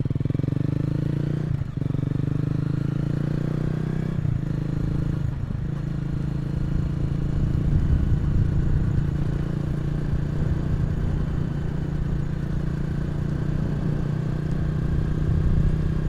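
Honda CRF250L's single-cylinder four-stroke engine running steadily under way, with brief dips in the engine note about two, four and five seconds in.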